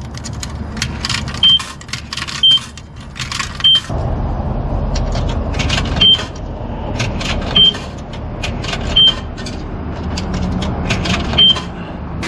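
Coins being fed into a self-serve car wash's coin slot: about seven clinks, each followed by a short high beep as the machine registers it. About four seconds in, a low steady rumble of the wash equipment starts and runs under the beeps.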